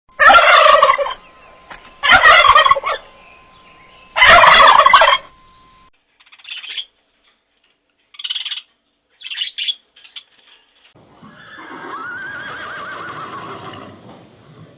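Turkey gobbling: three loud gobbles in the first five seconds, then several fainter short calls, and a longer, quieter call with a wavering pitch near the end.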